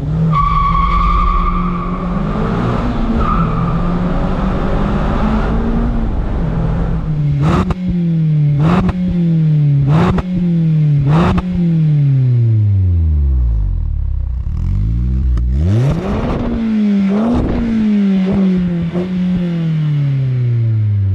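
Sports car engine and exhaust running hard while slowing, downshifting again and again. Each downshift brings a sharp rev blip with a crack from the exhaust, and the engine note falls between blips.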